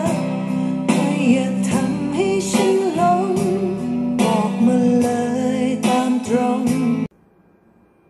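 Song with guitar and singing playing from a cassette through a home-built valve-amplified wooden speaker box. It cuts off suddenly about seven seconds in, leaving only faint background noise.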